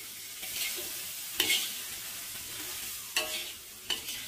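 Dried shrimp, petai and chillies sizzling in a wok while a spatula stirs them, with a steady hiss and three sharp knocks of the spatula against the wok.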